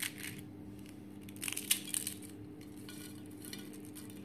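A crisp chocolate wafer roll being snapped and crumbled between the fingers: dry crackling crunches, with one right at the start, the loudest cluster about a second and a half in, and a lighter one near the end. Flakes fall onto a glass plate. The crackle shows how crisp the wafer has turned.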